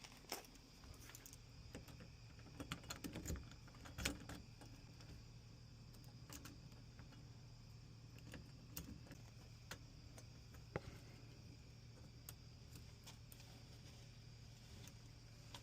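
Faint metallic clicking and ticking of a Lishi SC1 pick being worked in a Schlage SC1-keyway door lock, with a run of louder clicks about three to four seconds in and sparse ticks after. A faint steady low hum lies underneath.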